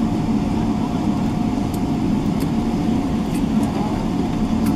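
Cabin noise inside a Boeing 777-300ER taxiing, its GE90 engines at idle: a steady low rumble with a constant faint whine above it.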